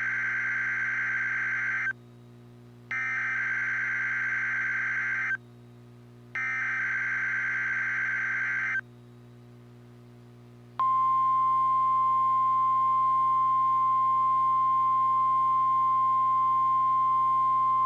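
NOAA Weather Radio alert signals sounding as the weekly test of the alarm device: three identical bursts of buzzy data tones (SAME header), each about two and a half seconds long with a second's pause between them. About two seconds after the last burst, the steady single-pitch 1050 Hz warning alarm tone starts and holds, louder than the bursts.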